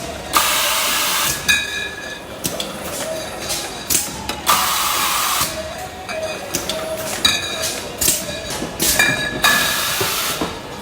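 Three loud bursts of hissing, each about a second long and some four seconds apart, over a background of clanking and machine noise.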